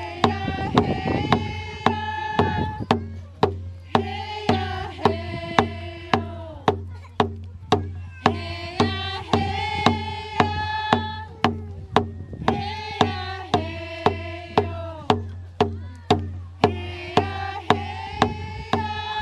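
A group of women singing a hand-drum song together, in phrases of two to three seconds with short breaks between, over round frame hand drums struck at a steady beat of about two strokes a second.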